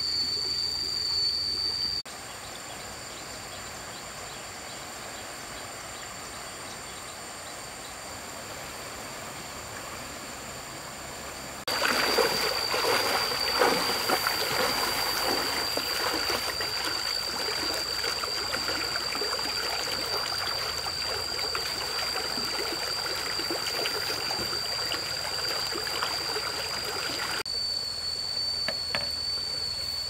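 Trickling water with a steady high-pitched tone over it. The sound drops abruptly quieter about two seconds in, then turns abruptly louder and crackly near the middle.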